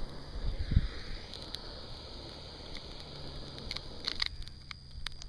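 Small campfire catching: toilet paper and thin twigs starting to burn, with scattered crackles and pops. A few low thumps about half a second in.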